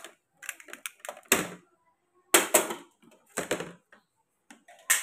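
Handling noise from audio gear and cables: several short, hard clattering knocks and rattles. The loudest come at about one and a half, two and a half, and three and a half seconds in.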